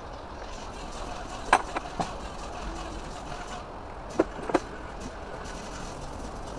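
Metal hand tool clinking against engine parts: a sharp clink about a second and a half in with two lighter ones right after, then two more a little past four seconds, over a steady background hum.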